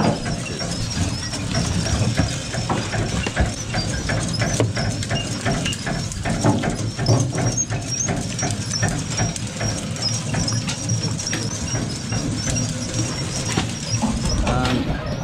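Work-deck noise aboard a fishing boat: a steady low machinery hum under frequent knocks and clatter of fish and gear being handled, with a faint high chirp repeating over and over.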